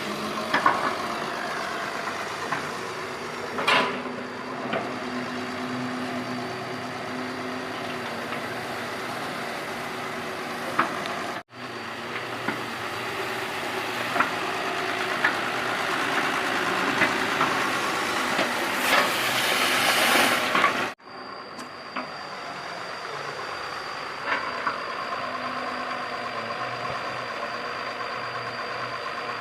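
Doosan 140 excavator's diesel engine running steadily as the machine digs, with a few sharp knocks. The sound drops out abruptly twice for a split second.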